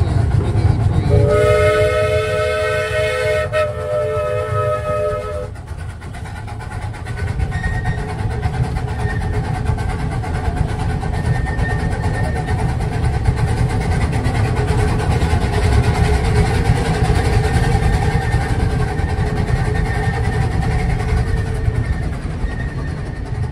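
A live-steam locomotive's chime whistle sounds one chord of several notes for about four seconds, starting about a second in. After it, the small-gauge train keeps running with a steady rumble.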